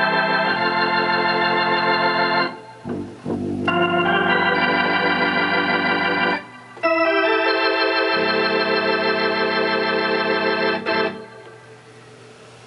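Hammond organ sounding through a Leslie 21H rotating speaker cabinet: three sustained chords, each a few seconds long with brief breaks between them, warbling from the turning rotor. A low bass note joins the last chord, and the organ stops about eleven seconds in.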